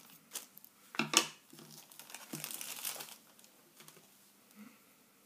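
Plastic and foil blind-bag toy packaging crinkling as it is handled, loudest about a second in and dying away after about three seconds.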